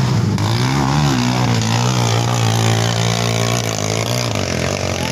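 Dirt bike engine revving hard under load as it climbs a steep dirt hill, its pitch wavering up and down with the throttle; the note eases off a little over four seconds in.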